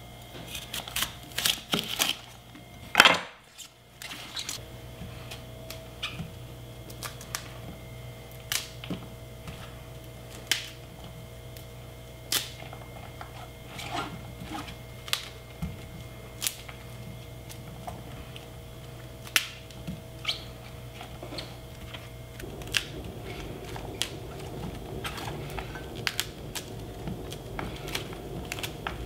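A chef's knife cutting through a cauliflower head on a wooden cutting board, then the florets snapped and pulled apart by hand. The sound is a run of crisp cracks and taps, the loudest a sharp knock about three seconds in, followed by scattered single snaps every second or so.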